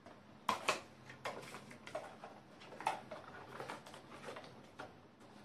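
Irregular clicks and taps of a small toy-car retail box being handled and opened, with two sharp clicks about half a second in, then scattered lighter ones.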